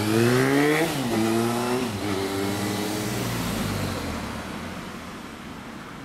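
Suzuki GSX400S Katana's inline-four with a WR'S aftermarket silencer accelerating away: the revs climb and drop twice as it shifts up, then the exhaust note fades steadily into the distance.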